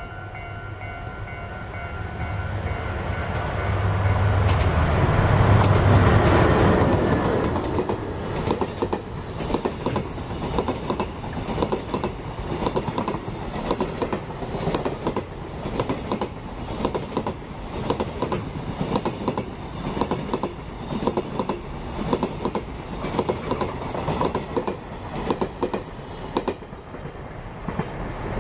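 JR Freight DF200 diesel-electric locomotive passing at speed, its engine rumble swelling to a peak about six seconds in. A long train of container wagons follows, its wheels clattering over the rail joints in a steady, repeating rhythm of clicks that dies away near the end.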